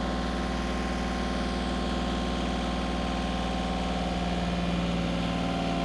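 Eagle ETB90 tire baler's power unit and hydraulic piston pump running steadily while compressing a layer of waste tires; the tone shifts slightly about four and a half seconds in.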